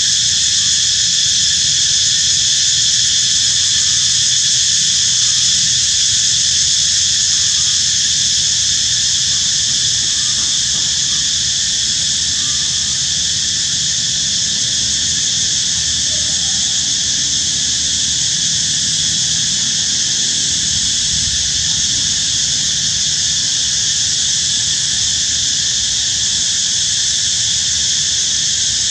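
Steady, high-pitched chorus of insects, unbroken throughout, with a faint low hum beneath.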